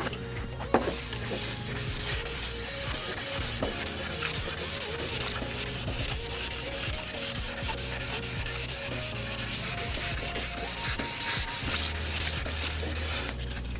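400-grit wet sandpaper on a soft sanding pad scrubbed back and forth by hand over a wet, primed motorcycle fairing panel: a steady run of short sanding strokes. This is wet-sanding the primer and glazing-putty spots. The strokes start about a second in and stop shortly before the end.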